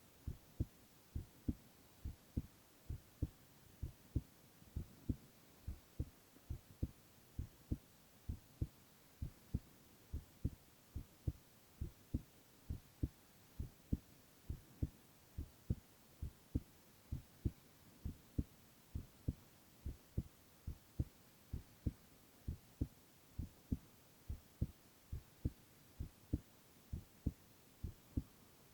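A man's heartbeat heard close up: steady low lub-dub double thumps at about one beat a second, over a faint hiss.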